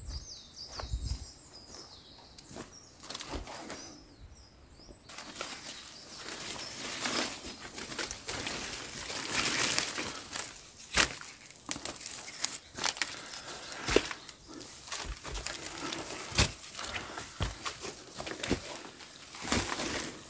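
Footsteps and rustling as someone walks over rough ground, with irregular crunches and knocks that get louder after about five seconds.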